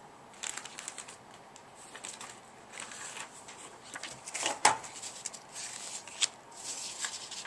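Hands handling cardstock and moving a pair of scissors on a tabletop: light paper rustling and scattered small taps, the loudest a sharp clack about four and a half seconds in and another a little after six seconds.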